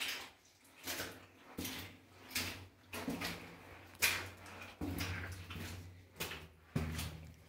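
Footsteps crunching and scraping on loose rock and gravel in a mine tunnel, at a steady walking pace of roughly one step every 0.7 seconds.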